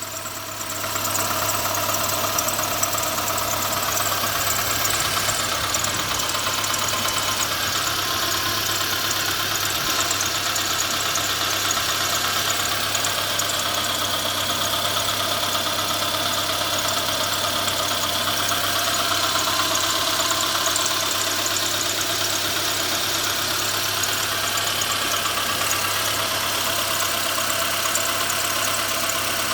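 The engine of a 2012 Renault Sandero Stepway running steadily at idle just after being started, with an extraneous noise at start-up. A high hiss comes up with it about a second in and dies away about five seconds in.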